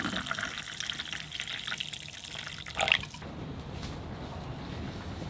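Liquid splashing in a ceramic mug as a drink is stirred with a wooden spoon, with a sharp knock just before the sound cuts off about three seconds in; a quieter low rumble follows.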